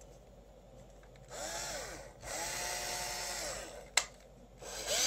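Craftsman 7.2 V cordless drill running free in trigger pulls on its rebuilt 18650 lithium-ion pack: the motor whine rises as it spins up, holds, and falls away as it coasts down, three runs in all. A sharp click comes between the second and third run.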